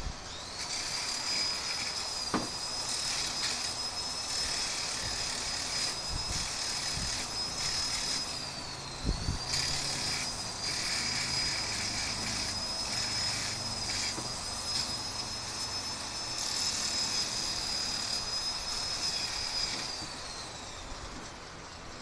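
Electric angle grinder running with a steady high whine, its disc grinding the end of a metal bar in on-and-off passes. The motor dips briefly about nine seconds in, and it winds down near the end.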